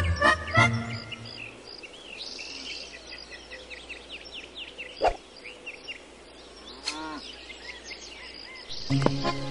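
Cartoon outdoor ambience sound effects: a flurry of quick high chirps, a single sharp click about five seconds in, and a short sliding call near seven seconds. Light children's music stops about a second in and comes back near the end.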